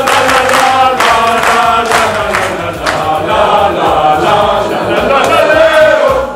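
A group of people singing together in chorus.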